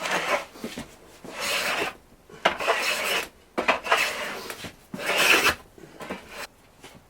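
Hand plane taking shavings off a sapele staff's high spot in about five short strokes, each starting sharply and separated by brief pauses.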